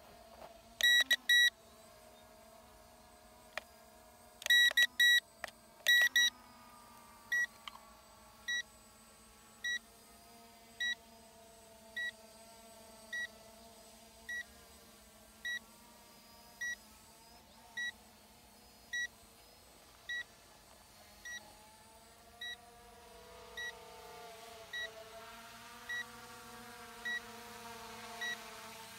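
A drone controller beeping: a few quick clusters of high beeps in the first six seconds, then one short beep about every second. Underneath, the faint steady whine of the ZLRC SG906 Pro 2 quadcopter's motors overhead grows a little louder near the end as the drone comes closer.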